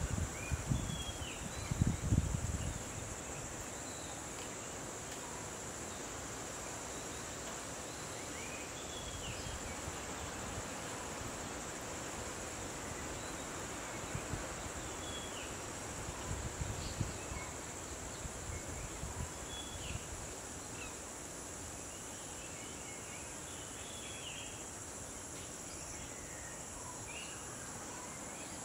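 Steady high-pitched insect drone, like crickets, with scattered short bird chirps. Low rumbling noise is heard in the first couple of seconds and again briefly past the middle.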